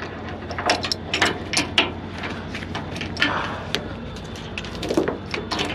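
Irregular metallic clinks and clanks of a tie-down chain and hooks being handled, over a steady low engine hum.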